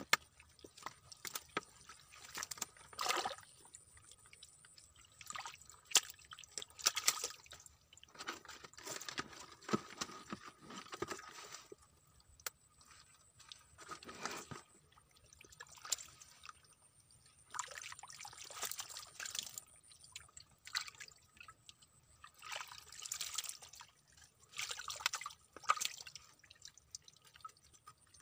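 Hands squelching and splashing in shallow muddy water in irregular short bursts, as stranded fish are felt for and picked out of the mud.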